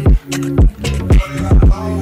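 Background music with a heavy beat: deep bass kicks about twice a second over held bass notes and light high ticks.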